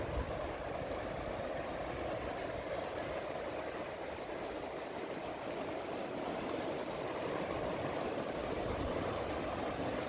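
Steady rush of waves breaking on a sandy beach, swelling slightly in the second half.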